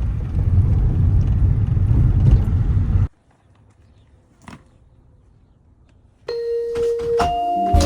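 A loud, steady rumbling noise, heaviest in the low end, cut off abruptly after about three seconds. Then it is quiet but for a single faint click, until music with held keyboard notes starts about six seconds in.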